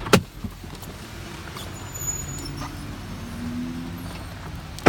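Steady rain and car noise from inside a car, with a sharp click just after the start and a loud knock near the end.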